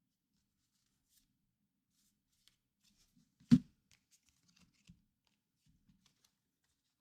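Quiet handling of trading cards and packaging on a table, faint rustles and ticks, with one sharp thump about halfway through and a smaller knock a second later.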